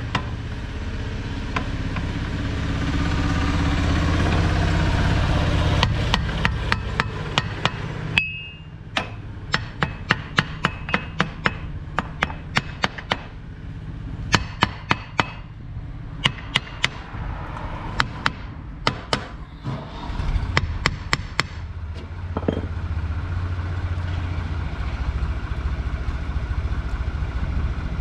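Hammer blows on metal during tractor axle work: dozens of sharp strikes in quick, irregular runs, some ringing briefly. They start about six seconds in and stop about twenty-two seconds in. A low steady rumble sits under the start and the end.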